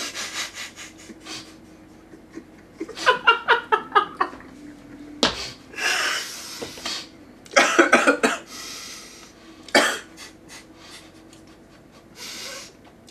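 Two men coughing and laughing behind their fists in several bursts, with breathy gasps between them. They are reacting to a foul-tasting mouthful of food.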